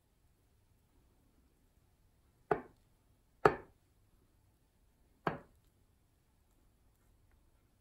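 A table knife knocking against a glass baking dish while swirling filling through batter: three sharp knocks, the first two a second apart and the last nearly two seconds later.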